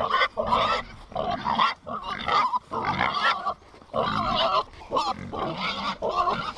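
Pigs squealing and grunting in many short calls in quick succession as they follow the feed bucket, expecting to be fed.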